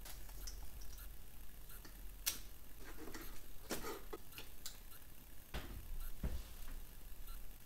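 Irregular light clicks and taps from glass plates and white clips being handled and fitted together, with a few duller knocks.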